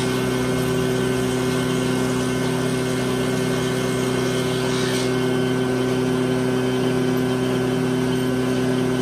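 A steady machine hum at a low, even pitch that does not change.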